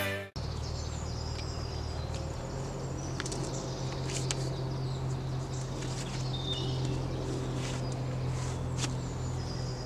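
Guitar music cuts off just after the start, giving way to woodland ambience: small birds chirping now and then over a steady low hum.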